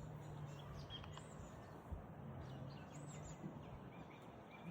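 Quiet outdoor ambience with a few short bird chirps, some scattered and two more distinct rising-and-falling calls, over a faint steady low hum.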